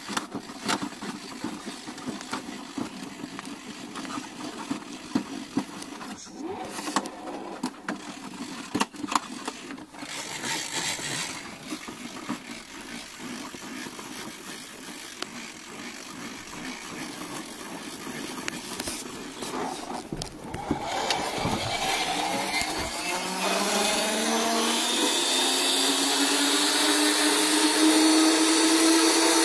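Wind-up radio's hand-crank dynamo being turned, with irregular clicks and rattles, then a whirring whine that rises in pitch and grows louder from about two-thirds of the way through as the cranking speeds up.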